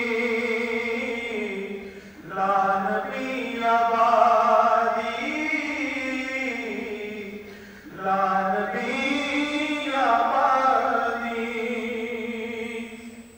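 A single male voice chanting long, melodic phrases with wavering held notes, breaking for breath about two and eight seconds in.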